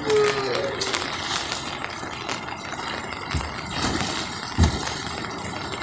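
Steady hiss of falling rain, with two dull low thumps a little past halfway through and about a second later.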